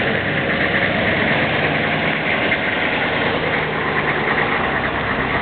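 Steady engine and road noise of a moving military vehicle, heard from inside, with a constant low engine drone under a hiss of road and rattle noise.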